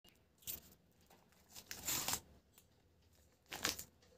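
Plastic wrapper of a Bourbon cream biscuit pack being torn open by hand: three short ripping, crinkling bursts, spaced about a second and a half apart.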